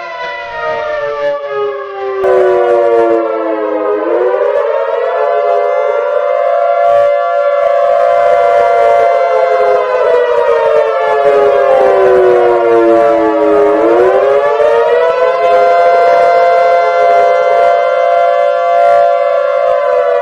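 Multi-tone civil defense warning siren wailing, its chord of tones falling in pitch for the first few seconds, rising back and holding steady, then falling again about two-thirds through before rising to a steady wail. It gets louder about two seconds in.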